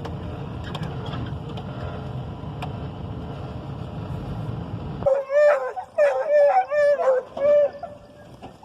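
A vehicle running steadily, then an abrupt change about five seconds in to hunting hounds baying, a string of long howling cries.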